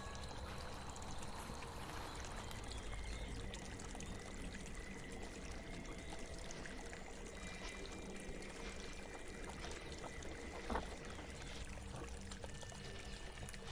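Steady flowing, trickling water ambience with faint held tones underneath, and one sharp snap toward the end.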